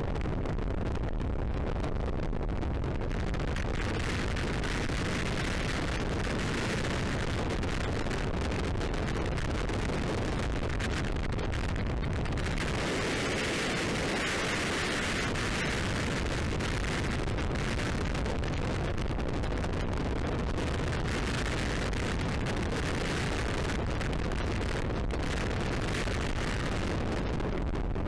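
Freefall wind rushing and buffeting over a skydiver's camera microphone, a steady loud rush of air that grows stronger for a few seconds about halfway through.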